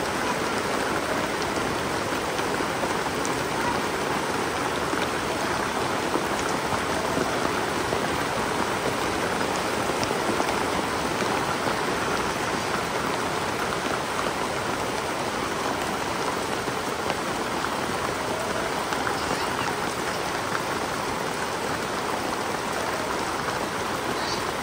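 Steady rain falling, an even unbroken hiss of drops.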